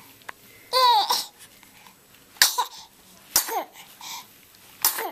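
A baby sneezing four times in a sneezing fit, each sneeze a sharp burst ending in a short squeaky cry that falls in pitch; the first, about a second in, is the longest.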